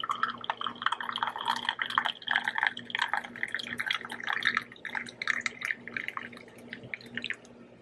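Elderberry tea being poured into a mug: a steady stream of splashing liquid that starts abruptly, rises in pitch over the first few seconds, then thins to scattered drips near the end.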